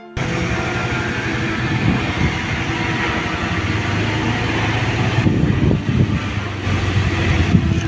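Steady engine-like machine noise with a low hum and uneven rumbling, starting abruptly and running on.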